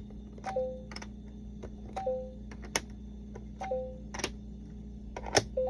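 LeapFrog Fridge Words toy giving a short falling two-note electronic beep about every one and a half seconds, four times, over a steady low electronic hum from its speaker. Sharp plastic clicks are mixed in, the letter pieces and toy being handled.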